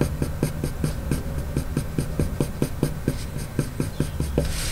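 Coloured pencil flicking rapid short strokes across paper, about six a second, as fine fur lines are drawn. The strokes stop shortly before the end.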